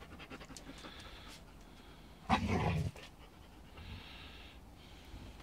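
Dogs panting in quick rhythmic breaths during rough play, with one short, louder dog grunt about two and a half seconds in.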